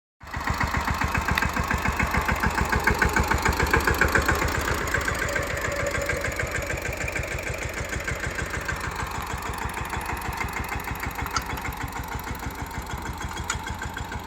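Tractor diesel engine running with a steady, even firing rhythm. It is loudest a few seconds in, then slowly grows quieter.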